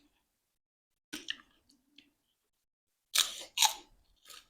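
Short clicking eating noises at a meal. Two loud ones come close together about three seconds in, with fainter ones before and after.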